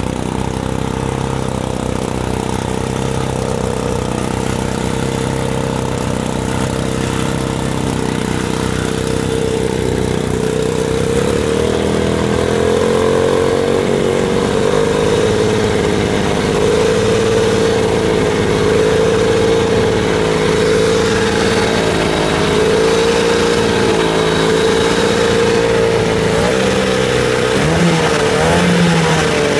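Two-stroke Mercury Mark 28 racing outboard on a vintage hydroplane running under way. It gets louder about twelve seconds in, and the engine note then rises and dips repeatedly, with a brief dip near the end.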